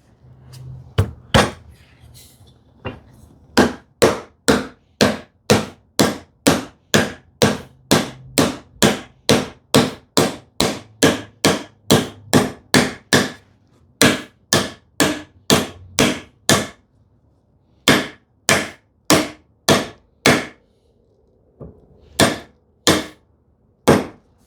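Hammer tapping on wood to drive a freshly glued dovetail joint of a drawer box home: a long run of steady blows, about two a second, a short pause, then a few more near the end.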